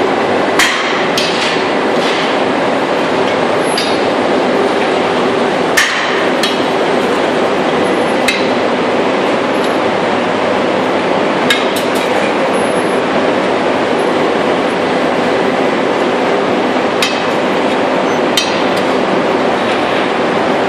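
Steady loud noise of foundry machinery in a metal-casting shop, with about half a dozen sharp metallic clinks and knocks from steel tools striking the ingot moulds.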